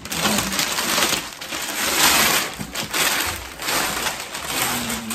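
Gift wrapping paper being torn and crumpled off a cardboard box, in several rustling, crackling bursts.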